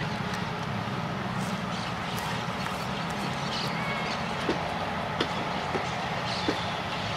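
Passenger coaches of a diesel-hauled train rolling slowly past, with a steady low rumble. In the second half the wheels click over the rail joints four times, a little under a second apart.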